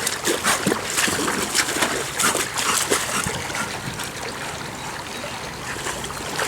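Water splashing in a swimming pool, a string of irregular splashes.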